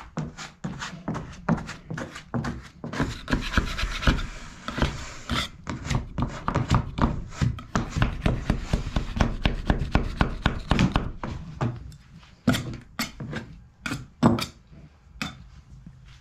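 Hand sanding with 80-grit sandpaper over cured filler patches on a fiberglass boat hull: rapid back-and-forth scraping strokes, with a few separate strokes near the end.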